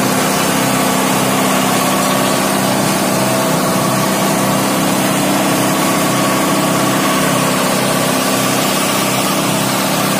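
Fire truck engine running at a steady speed, a constant hum with a hiss over it.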